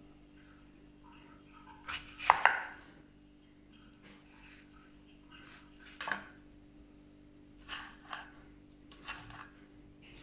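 Knife slicing a tomato on a wooden chopping board: a series of cuts and knocks of the blade on the board, the loudest cluster about two seconds in, with more cuts spread through the rest.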